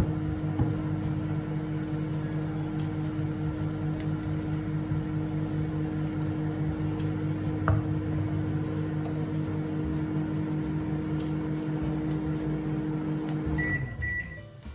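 A kitchen appliance runs with a steady electrical hum. Near the end the hum winds down, falling in pitch as it stops, and a few short high beeps follow.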